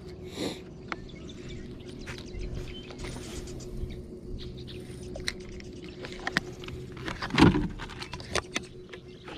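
Small clicks and taps of a spinning rod and reel being handled in a plastic kayak, over a faint steady hum. One louder knock about seven and a half seconds in.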